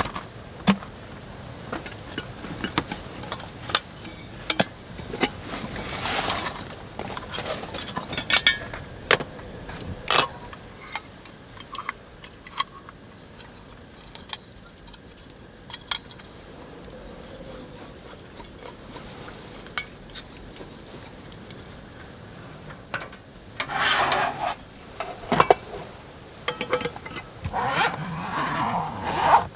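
Scattered clinks and knocks of small hard objects being handled, like camp utensils or gear, with bursts of rustling around a quarter of the way in and again near the end.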